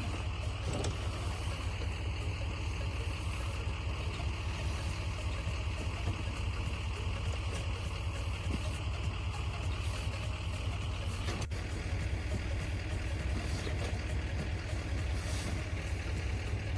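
Vehicle engine running steadily at idle, a continuous low rumble with no change in speed.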